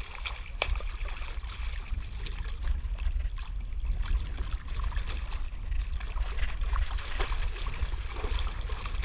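Water splashing and sloshing right beside a kayak as a hooked ray thrashes at the surface, in scattered short splashes over a steady low rumble.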